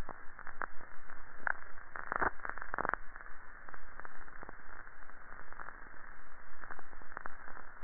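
Old record surface noise: a steady, muffled hiss and crackle with scattered sharp clicks, thickest a couple of seconds in.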